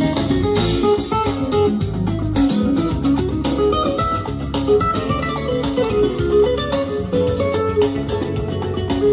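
Plucked guitar music played back through a pair of Pioneer HPM-40 speakers driven by a Scott 2055-A amplifier, a steady run of short, quickly changing notes.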